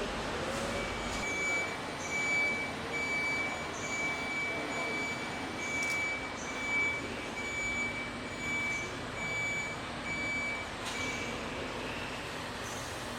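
Electronic warning beeper sounding a steady series of high beeps, about one a second, over the hum and clatter of a truck assembly plant, then stopping.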